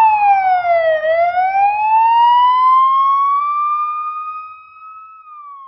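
Siren sound effect in a song's outro: one wailing tone falls in pitch for about a second, climbs slowly back up, then starts falling again as it fades out near the end.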